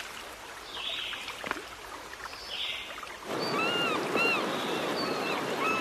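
Flowing river water, soft at first. About three seconds in it becomes the louder rush of white-water rapids, with a bird calling over it in a quick series of short, arching chirps.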